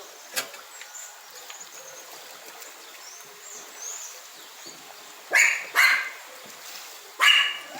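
A dog barking three times: two barks in quick succession about five seconds in, then one more about a second and a half later. A steady rush, likely the floodwater, runs underneath.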